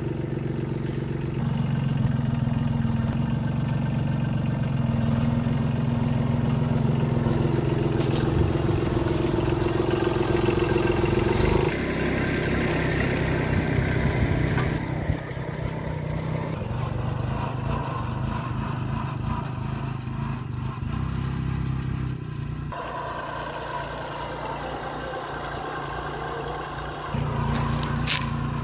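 Kubota 27 hp tractor's diesel engine running steadily under load as it pulls a row cultivator through a field, its level rising and falling in steps.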